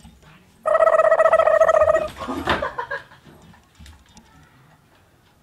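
A loud, drawn-out cry held at a level pitch for about a second and a half, starting just under a second in, followed by a couple of shorter, fainter calls.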